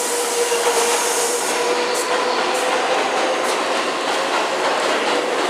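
New York City subway train running past the platform: a loud, steady rushing rumble with a faint steady whine above it.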